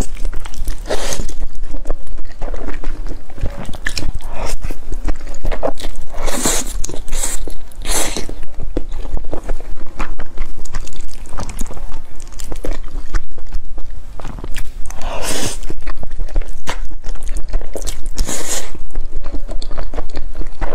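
Close-miked eating of thick noodles in dark sauce: wet chewing throughout, broken several times by long slurps as strands are sucked in.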